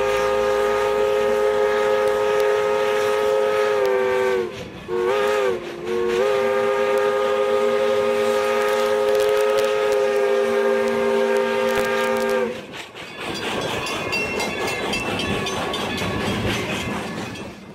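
Nevada Northern Locomotive 40's steam whistle sounding a multi-note chord in a long blast, a short blast and a final long blast held about six seconds, a pattern that fits a signal for the road crossing ahead. Afterwards the moving steam train's running noise goes on, with a regular clicking.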